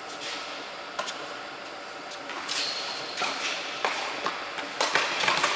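Tennis rally: a series of sharp racket-on-ball strikes and ball bounces, several close together near the end, echoing in a large indoor tennis hall.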